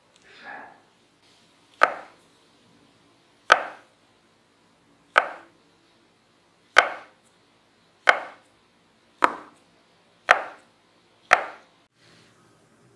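A white plastic knife chopping a log of mashed-potato and corn-starch dough into short pieces on a silicone baking mat: eight sharp knocks as the blade goes through and hits the mat, coming a little faster toward the end. A soft brushing sound comes just before the first cut.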